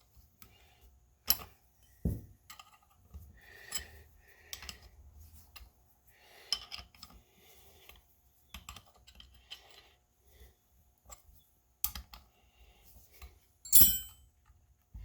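Irregular light clicks and metallic taps of motorcycle brake calipers and their mounting bolts being handled on a workbench, with a few louder knocks and a sharp clatter near the end.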